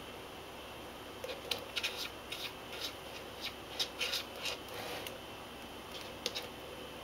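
Water splashing in short, irregular flicks, bunched through the middle few seconds with a few more near the end, as a ragdoll cat paws at the water of an electric pet drinking fountain. The fountain's small pump runs steadily underneath.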